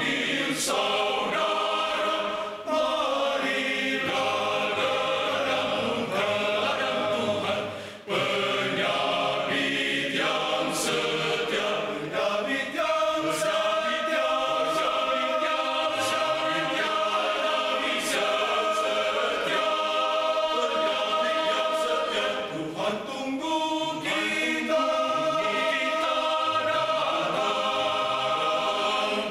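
Male choir singing in parts, holding long chords, with a short break between phrases about eight seconds in.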